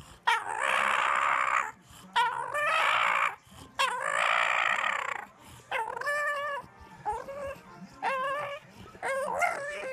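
English bulldog making a run of whining, howl-like calls: three long drawn-out ones, then four shorter ones.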